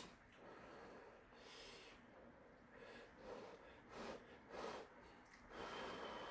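Faint short puffs of breath, about five, blowing to cool a strand of hot siraegi (dried radish greens) from doenjang soup before eating.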